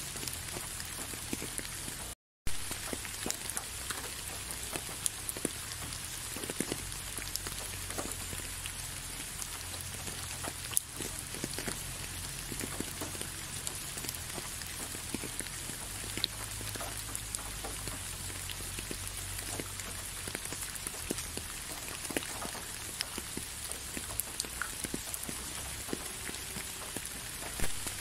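Steady rain, with many individual drops striking close by as distinct ticks over an even hiss. The sound cuts out completely for a moment about two seconds in.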